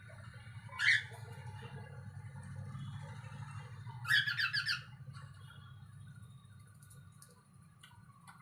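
Pet parrot calling: one short sharp call about a second in, then a fast run of harsh squawking notes about halfway through, over a steady low hum.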